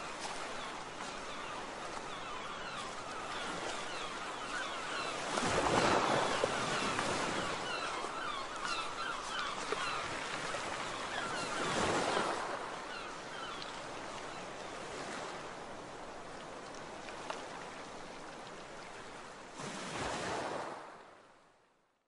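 Waves washing, a steady rush of water that swells twice, about six and twelve seconds in, then fades out near the end.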